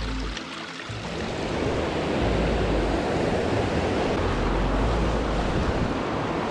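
Fast-flowing mountain river rushing over rocks, a steady loud roar of water that builds about a second in.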